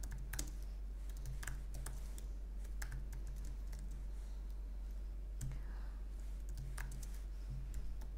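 Typing on a computer keyboard: irregular key clicks, a few at a time with short pauses, over a steady low hum.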